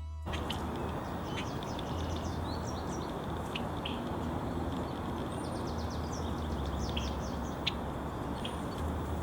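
Small songbirds chirping and twittering on and off over a steady low rumble of outdoor background noise.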